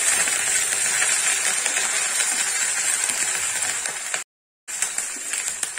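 Curry leaves and green chillies sizzling and spattering hard in hot oil in a small tempering pan, a dense crackling hiss that eases slightly. The sound breaks off for a split second about four seconds in, then the sizzle carries on softer.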